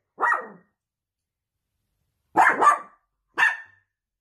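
Wire-haired dachshund barking: a single bark, then a quick pair of barks about two seconds later, then one more.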